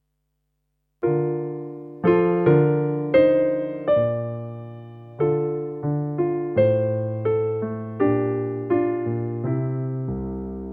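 Piano chords played on a keyboard, starting about a second in: a slow run of chords, each struck and left to fade before the next.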